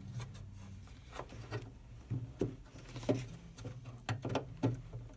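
Faint scattered clicks and rubbing of plastic as a hand works a daytime running light bulb socket into the back of a VW MK6 Jetta's plastic halogen headlight housing, struggling to seat and twist it into place. A low steady hum sits underneath.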